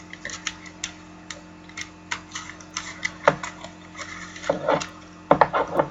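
Small, irregular clicks and ticks of trading cards and plastic card holders being handled, over a faint steady hum.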